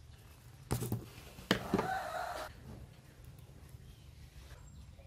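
A sharp click, then a chicken calling once in the background: a short pitched call lasting about a second.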